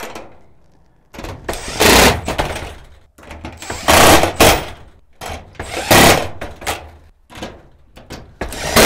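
Makita 18V cordless impact driver hammering screws through a pad bolt into a sheet-metal door, in four short bursts about two seconds apart.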